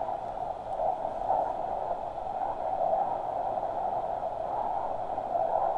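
Steady rushing wind and road noise on a moving motorbike, with no clear engine note.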